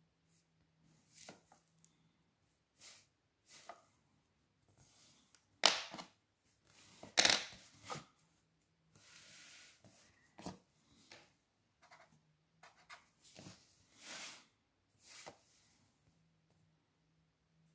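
Pencil and plastic set square on drawing paper: short scattered scrapes and taps as the set square is slid and repositioned and lines are drawn, with two louder clatters about six and seven seconds in.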